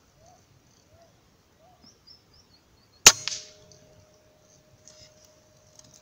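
A single sharp gunshot from a scoped hunting rifle about three seconds in, followed by a faint steady ringing tone that lasts about three seconds.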